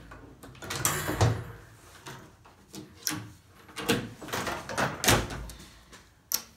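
Folding attic ladder being folded up and pushed into its ceiling hatch: a series of knocks and clatters from its hinged sections and the hatch.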